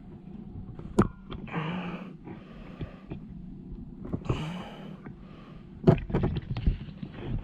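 Sharp plastic clicks and knocks from a door pull handle's retaining clip being pushed on and the trim panel being handled, loudest about a second in and again around six seconds in, with a person's heavy breathing between them.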